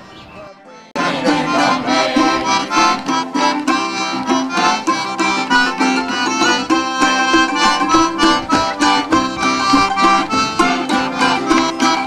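After a quiet first second, instrumental folk music cuts in suddenly and plays on steadily: the introduction to a sung ballad.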